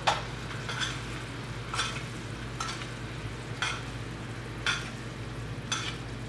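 Teriyaki sauce sizzling and bubbling in a hot frying pan around chicken as it is reduced to thicken, with a short spoon stroke through the sauce about once a second. A steady low hum runs underneath.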